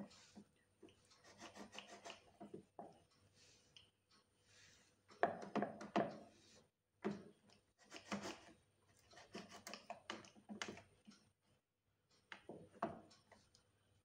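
Large chef's knife cutting through a slab of set homemade chocolate fudge, its blade scraping and tapping on the board beneath, in about five faint bouts of scraping and clicks.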